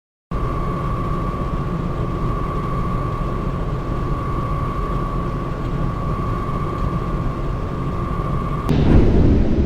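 Industrial fan running at a steady speed: a constant whirring rush with a steady high whine. It cuts in abruptly after a brief silence. Near the end a louder, deeper rushing sound takes over.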